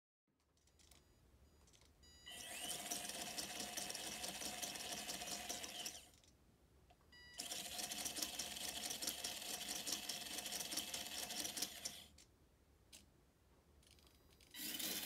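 Small electric drive motor of a 3D-printed RC car whirring through its plastic gears under throttle. It spins up about two seconds in and runs for a few seconds, stops, runs again for about five seconds, then starts once more near the end.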